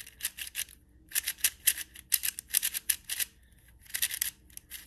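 YJ Zhilong mini 4x4 speed cube being turned fast by hand: its plastic layers click in quick runs of turns, with a brief pause a little over three seconds in.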